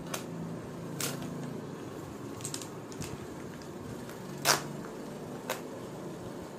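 A sheet-mask sachet being handled and worked open by hand: scattered crinkles and small clicks, with the sharpest click about four and a half seconds in.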